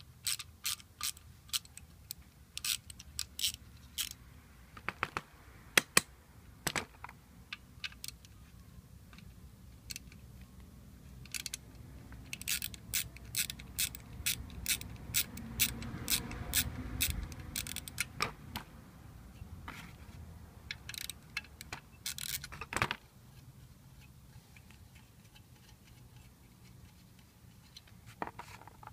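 Hand socket ratchet clicking in short, uneven runs as it backs off the nuts on an alternator's rear cover, with pauses between runs.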